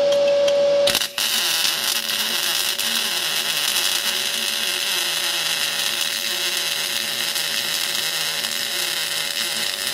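MIG welding arc from an R-Tech MIG180 spool gun on thin aluminium plate, a steady crackling hiss that strikes up about a second in and carries on without a break. The power has just been turned up a little, and the weld runs hotter with better penetration.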